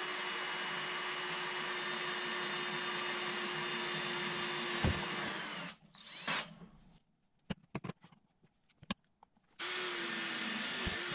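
Cordless drill running steadily, its bit boring into a copper pipe held in a drill-guide stand. It winds down and stops about halfway through, a few light knocks follow, and it starts again near the end for the second hole.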